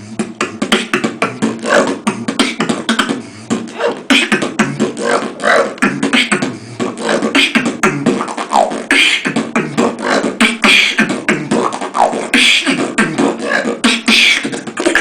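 Human beatboxing: a fast, continuous routine of mouth-made percussive hits mixed with short pitched vocal glides.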